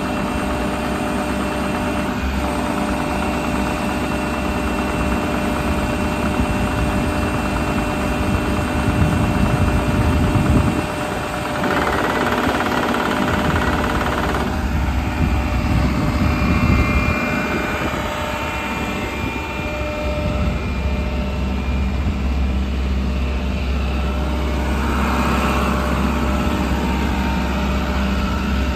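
JCB 85Z-2 midi excavator's diesel engine running steadily at idle, a constant low rumble with a steady hum. About a third of the way in the note briefly dips and then comes back with a rougher, noisier stretch before settling again.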